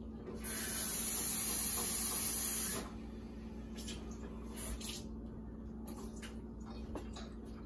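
Kitchen tap running for about two seconds, a steady hiss of water filling a mug, then stopping. A few faint clicks and knocks of handling follow.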